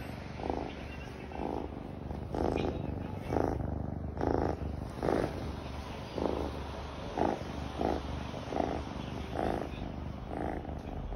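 Domestic cat purring close up, a steady low rumble that swells about once a second with each breath in and out.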